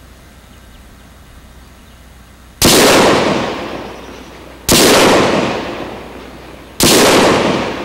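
Three rifle shots about two seconds apart, each trailing off in a long echo. They match the three 5.56 NATO rounds fired at the test glass.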